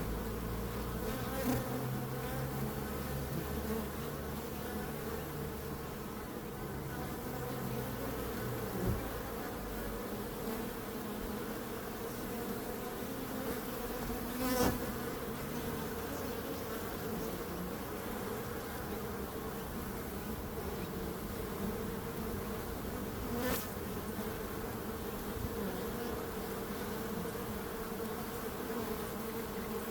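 Many bees buzzing in a steady, continuous hum, with a few brief taps or clicks, one about halfway through and another near the end.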